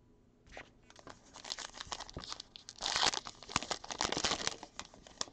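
Crinkling and tearing of a trading-card pack's wrapper as it is ripped open by hand, a rapid run of crackles that starts about half a second in and is loudest near the middle.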